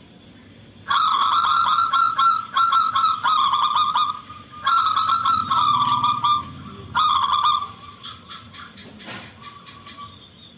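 Zebra dove (perkutut) cooing: a loud, rapidly stuttering song in three bouts, the first and longest starting about a second in and the last ending before the final few seconds. Fainter calls come near the end.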